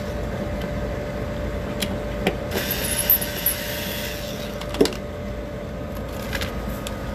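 Cooling equipment (chiller) of a cold saltwater touch tank running with a steady hum. A few clicks and knocks come over it, with a stretch of hissing rush in the middle.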